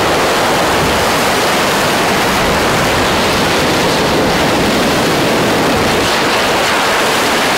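A steady, even hiss of noise at one constant level, with no tones or rhythm in it.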